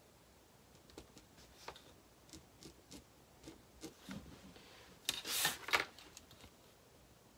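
Small taps and scratches of a pen and a clear acrylic ruler on fabric over a cutting mat, then about five seconds in a louder sliding rustle as the ruler and fabric pieces are moved across the mat.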